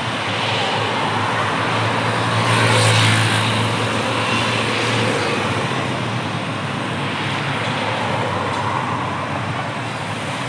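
Roadside traffic noise, with a heavy vehicle's low engine hum swelling as it passes, loudest about three seconds in.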